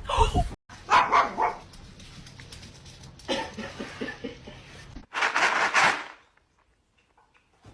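A dog barking in a few loud bursts, then falling quiet near the end.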